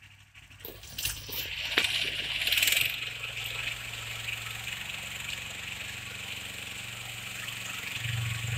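Engine of a converted three-wheeled ride-on motoblock running steadily while its rotary tiller churns the soil. It comes in about a second in, with a few sharp clicks and a brief hiss in the first seconds, and grows louder near the end.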